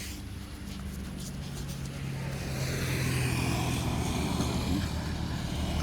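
A motor vehicle's engine running steadily, growing louder over the first few seconds as it comes closer.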